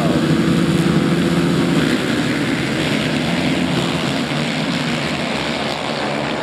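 A pack of dirt-track racing motorcycles running together, their engines making a loud, dense drone.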